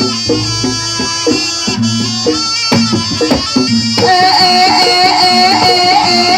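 Jaranan dance music: a traditional Javanese ensemble with drums beating out a steady rhythm under a melody. About four seconds in, a new bright, fast-repeating melody line enters and the music gets a little louder.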